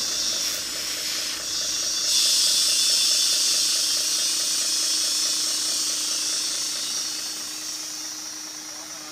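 A steady loud hiss, growing louder about two seconds in and easing off near the end, over a faint steady hum with a fast pulse.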